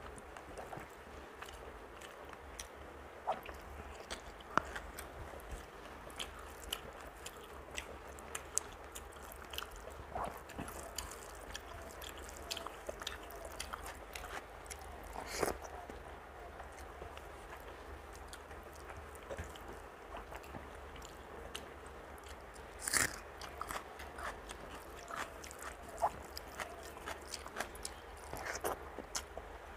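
A person eating rice mixed with curry by hand: chewing with short, irregular wet mouth clicks, and fingers squishing and mixing rice on a steel plate. A few louder clicks come about halfway and about three quarters through, over a faint steady low hum.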